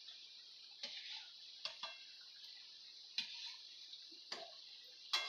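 Thekua deep-frying in hot oil in a steel kadhai, a faint steady sizzle, with a steel slotted spoon clinking against the pan about six times as the pieces are turned.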